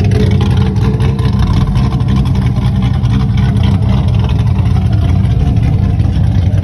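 Chevrolet Corvette's V8 idling steadily, heard close up at the exhaust tips, with a deep, even exhaust note.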